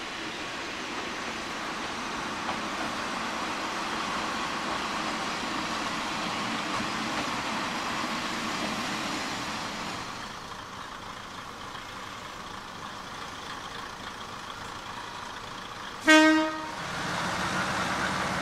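Kominato Railway diesel railcar running past, its engine and wheels rumbling, building over the first ten seconds and then easing. Near the end it gives one short, loud blast of its horn.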